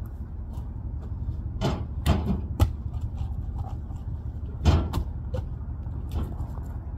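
Firewood logs knocking and thudding as they are shifted on a truck bed and dropped: about half a dozen separate knocks, the loudest about two and a half seconds and nearly five seconds in, over a steady low rumble.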